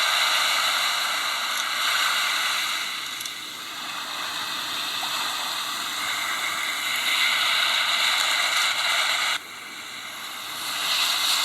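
Steady hissing noise, like static, with almost no low rumble, from the soundtrack of played volcanic eruption footage; it drops abruptly about nine seconds in and swells again near the end.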